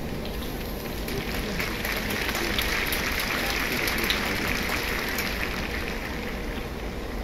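Stadium crowd applauding: a dense patter of clapping that swells through the middle and eases off slightly near the end.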